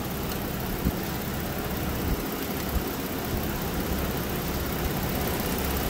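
Non-turbo 3.5-litre V6 of a 2016 Ford Explorer idling steadily, with a few faint clicks. The failed cylinder 3 ignition coil has been replaced and the engine no longer misfires.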